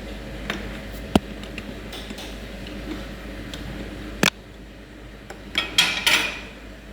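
Metal parts and tools clinking and clicking in a series of sharp, separate knocks, with a low steady hum that stops at a loud click about four seconds in and a quick clatter of several hits near the end.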